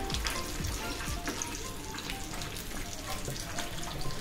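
Thick butter chicken gravy simmering in a kadhai on the stove, a steady sizzle scattered with many small crackling pops.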